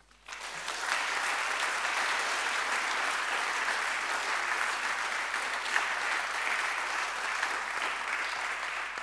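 Congregation applauding: a steady round of clapping that builds within the first second and tapers off near the end.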